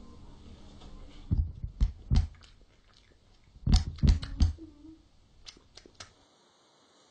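A series of dull, heavy thumps: three in quick succession, then four more about two seconds later, followed by a few light clicks near the end.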